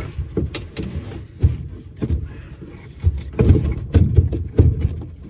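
Irregular wooden knocks and thumps at a plywood wall, several in quick succession about three to five seconds in, as the wall cavity is prodded to find what the saw blade is catching on.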